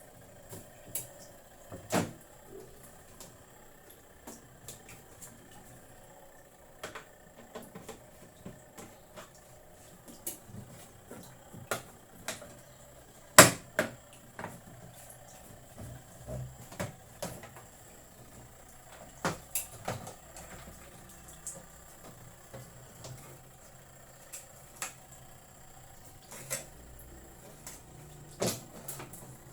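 Irregular clicks and knocks of hard objects being handled and set down, a few a second at most, over a faint steady hum; one louder knock comes about halfway through.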